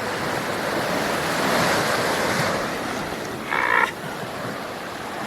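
Surf breaking and washing up the beach, swelling to a peak about two seconds in and then easing off. A short high-pitched call cuts through briefly near the four-second mark.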